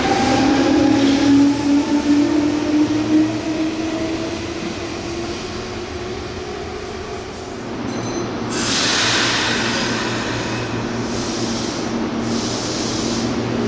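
Meitetsu electric train running, with a whine that rises slowly in pitch, then a louder rush from about eight seconds in that swells and fades in a regular rhythm about every second and a half as the cars go by.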